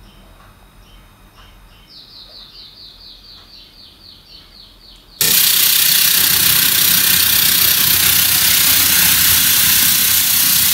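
Faint high chirping, then about five seconds in a sudden, loud, steady static noise from the amplifier fed by a Samsung TV's optical output as a video starts playing. This is the distorted, crackling sound ('rè tiếng') of the optical-connection fault, which is cured by adjusting the TV's sound settings.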